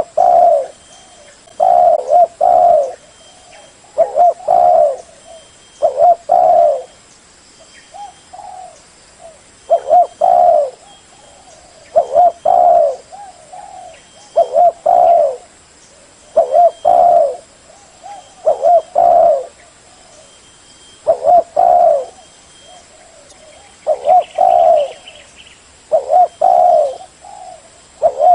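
Spotted dove cooing: a repeated phrase of two or three low coos, recurring about every two seconds.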